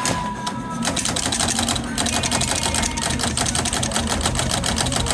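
Smith Corona manual typewriter clacking in a fast, even run of key strikes, starting about a second in, as the freshly repaired carriage steps along.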